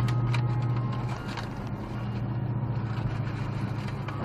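Car interior noise while driving, picked up by a windscreen dashcam: a steady low engine and road drone.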